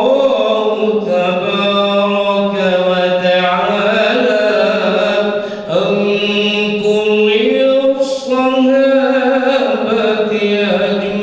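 A voice chanting melodically in long held notes that slide from one pitch to the next, with no drums behind it.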